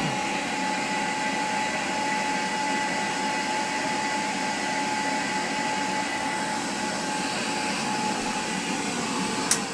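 1958 Goblin vacuum cleaner running steadily with a motor whine, then switched off with a click near the end as the motor starts to wind down.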